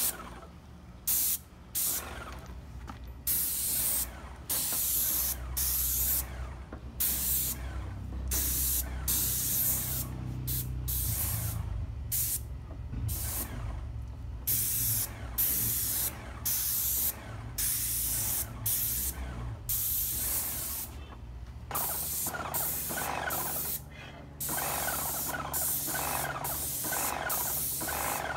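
Airless paint sprayer spraying stain onto wooden boards: a hiss from the spray tip in repeated short bursts, starting and stopping with each pull of the trigger, over a low steady hum.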